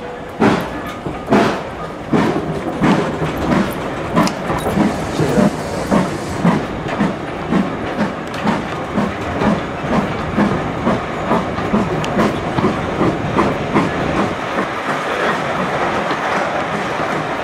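Steam locomotive's exhaust beats as the train pulls away: slow chuffs about a second apart that quicken steadily to two or three a second, then merge into a steadier rolling rumble near the end, heard from a carriage further back.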